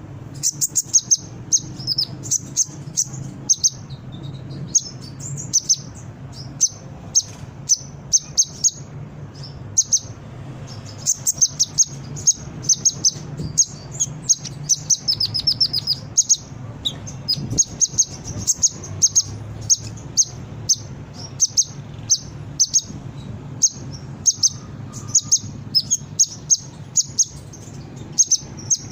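Kolibri ninja sunbird singing: rapid series of short, high-pitched chirps and fast trills, repeated over and over, with a steady low hum underneath.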